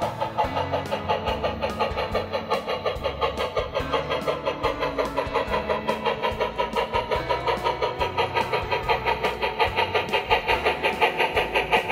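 HO scale model train running on the layout, with a fast, even rhythmic clatter of about six beats a second over a low engine-like rumble.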